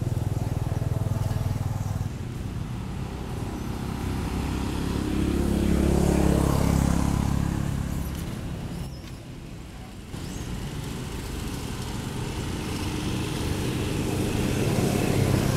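Motor vehicle engines running, with one growing louder about six seconds in and dying away around nine seconds.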